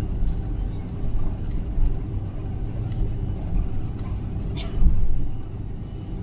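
Steady low rumble of an Airbus A330's cabin as the airliner moves slowly on the ground, with its engines running, heard from a window seat. A short louder noise comes about four and a half seconds in.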